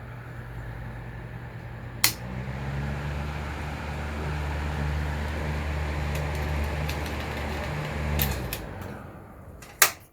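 Mitsubishi EFG-30MSB pressure-type exhaust fan running with a steady low motor hum and air noise; about two seconds in a sharp click and the hum grows louder. Near the end another click, the fan runs down, and a loud click comes just before it goes quiet.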